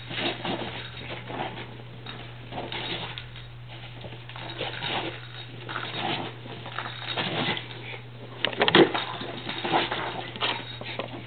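Norwich terrier scrambling about on carpet after a toy ball: irregular paw patters and scuffs, with a louder flurry of knocks about nine seconds in.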